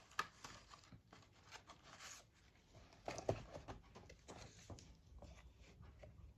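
Faint rustling with scattered light clicks and taps, as of objects and cards being handled and set out on a table, a little louder about three seconds in.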